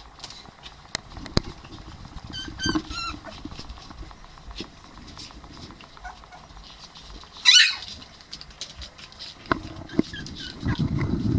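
Ryukyu dog puppies squeaking: a few short high squeaks about two to three seconds in and one louder squeal about halfway, amid small clicks and scratches of paws on the floor. A low rustling rumble comes in near the end.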